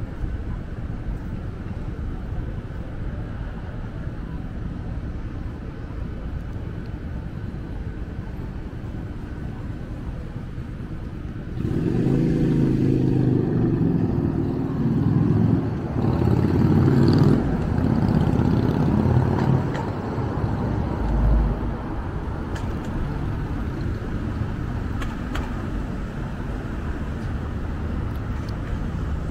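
City street traffic rumble. About twelve seconds in, a motor vehicle's engine grows loud close by for about eight seconds, then fades back into the traffic noise.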